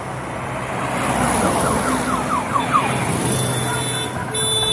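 Classic cars driving past with engine and road noise. An ambulance sounds its siren in a quick run of falling sweeps, about five a second, and a horn sounds once near the end.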